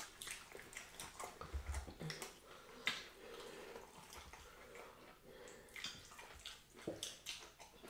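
Faint eating sounds: a few soft, scattered clicks and squelches of fufu and okra soup being handled and chewed.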